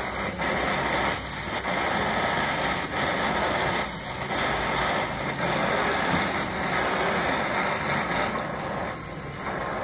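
Gas welding torch flame hissing steadily while it heats an aluminium part and a filler rod is fed in, dipping briefly a few times.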